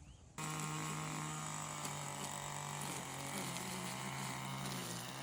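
A small engine running steadily at a constant pitch, starting abruptly about half a second in.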